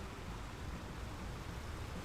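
Ocean surf washing against rocks, a steady rushing hiss a little quieter than the breaking waves either side.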